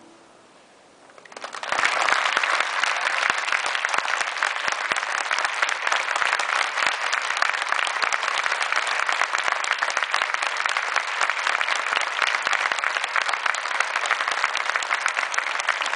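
Audience applause: many people clapping steadily, starting after a brief quiet about a second and a half in.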